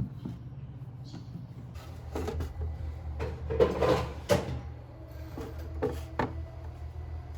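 A series of knocks and clatters as kitchen items and storage containers are handled and put away, in the manner of cupboard or drawer sounds. The loudest come about four seconds in, over a steady low hum.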